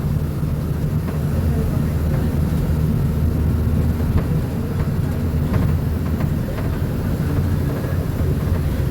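Diesel engine of a Marcopolo Sênior Midi bus on an Agrale MA 15.0 chassis, running steadily with a low drone. A few faint clicks come through around the middle.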